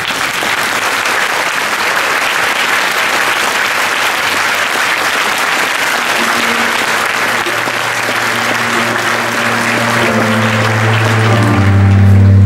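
Large audience applauding in a big hall. Music comes in faintly about halfway through and grows loud near the end.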